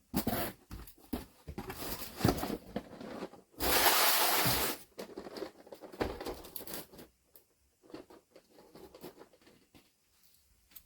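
A shipping package being torn open by hand: ripping and rustling with a long loud tear about four seconds in, then lighter scattered knocks and rustles of the packaging being handled.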